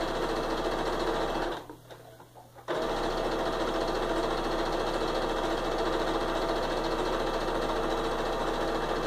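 Electric domestic sewing machine running at a steady speed, stitching a long straight seam through quilting cotton strips. It stops for about a second near the two-second mark, then runs on steadily.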